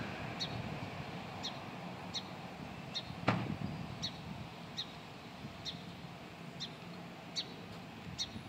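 A bird chirping steadily, short high notes repeated about once a second, over a low outdoor hum. One sharp click a little over three seconds in.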